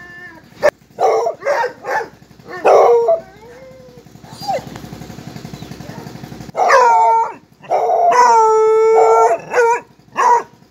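Hunting hounds barking in short separate barks, then after a short lull breaking into long drawn-out baying howls, the longest held for over a second.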